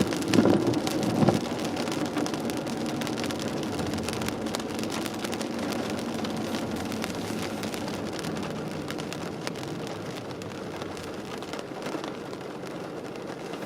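Rain and wet-road tyre noise heard from inside a moving car: a steady hiss that slowly fades, with two short knocks in the first second and a half.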